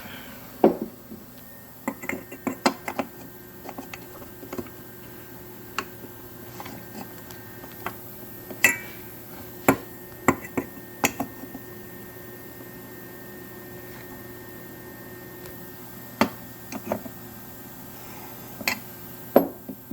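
Scattered clinks and knocks of steel parts being handled and test-fitted, in two busy spells with a pause between, over a faint steady hum.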